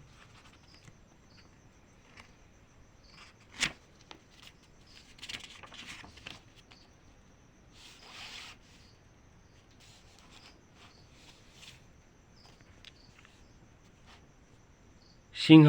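Quiet room with faint scattered rustling and one sharp click about three and a half seconds in.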